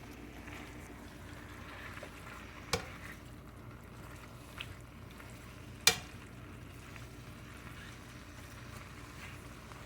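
Sliced sirloin and onions frying in a pan with a steady low sizzle while being stirred, and a utensil clinking sharply against the pan three times, the last and loudest about six seconds in.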